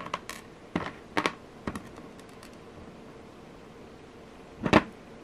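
Small metal jewelry findings and tools being handled on a tabletop: a few light clicks and taps in the first two seconds, then one sharper knock near the end.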